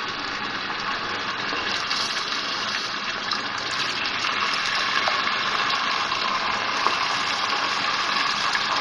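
Raw mutton pieces sizzling in hot cooking oil as they are dropped into the pot, a steady hiss that grows a little louder as more pieces go in.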